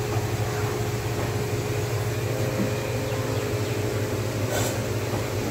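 A steady low mechanical hum with a faint steady tone above it, and one short noisy sound about four and a half seconds in.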